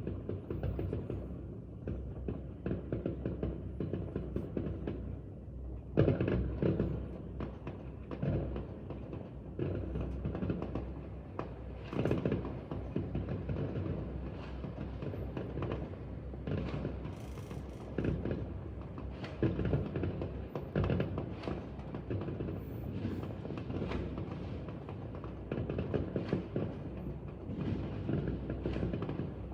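New Year's fireworks going off continuously: an uneven run of bangs and crackles over a low rumble, with the loudest bursts about six seconds in and again about twelve seconds in.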